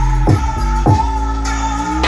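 Electronic dance music played at maximum volume through a JBL Partybox Ultimate party speaker: heavy kick-drum hits over a deep, sustained bass and held synth notes.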